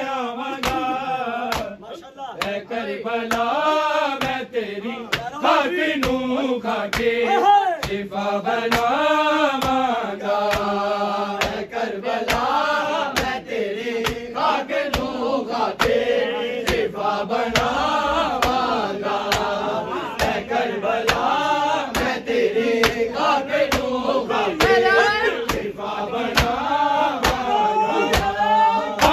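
Men chanting a noha, a Shia lament, to a steady repeating melody. It is kept in time by a regular beat of sharp strikes, about two a second, from matam: hands beating on chests.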